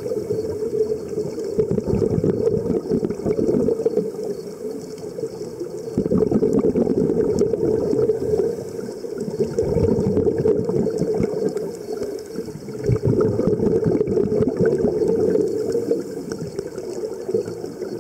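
Scuba divers' exhaled bubbles gurgling and crackling from the regulators underwater, swelling and easing in surges a few seconds apart.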